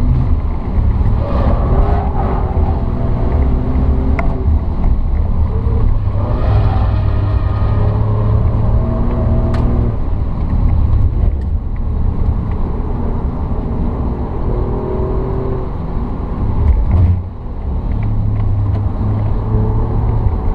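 Alfa Romeo Giulia Quadrifoglio's twin-turbo V6 heard from inside the cabin, driven hard on track, its pitch climbing and dropping repeatedly with gear changes over a steady low road rumble. About three-quarters of the way through, a brief lift off the throttle makes it momentarily quieter.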